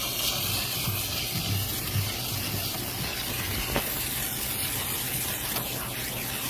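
Water spraying steadily onto a 5-ton condenser coil as it is being cleaned, an even hiss.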